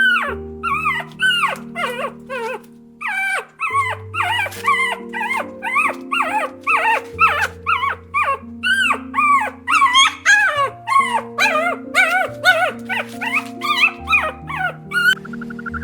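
A dog whimpering and yipping in a rapid run of short, high cries that rise and fall, roughly two a second, over steady background music. The cries stop shortly before the end.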